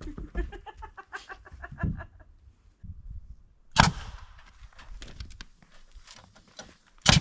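A quick run of short pitched calls over the first two seconds, then two loud knocks of framing lumber being handled, one just past the middle and one near the end.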